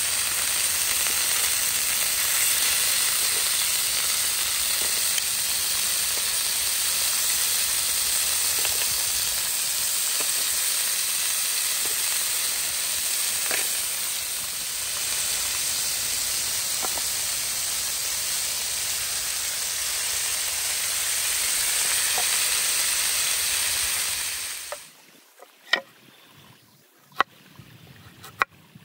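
Beef slices sizzling on a hot grill pan: a steady hiss with occasional faint ticks. About 25 seconds in it cuts off abruptly, leaving a few sharp clicks in near quiet.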